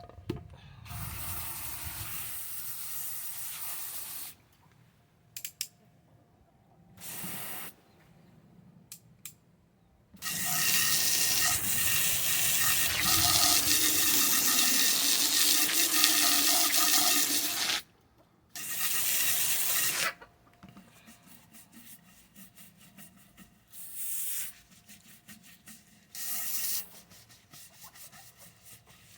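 Water running hard from a hose or tap in several bursts, the longest and loudest lasting about seven seconds in the middle, splashing into a container as it fills; smaller short spurts follow near the end.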